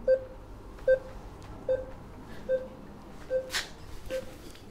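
Neurofeedback training software giving short reward beeps, six in a row about every 0.8 seconds. Each beep is operant-conditioning feedback that the brain is producing the trained activity. A brief burst of noise comes about three and a half seconds in.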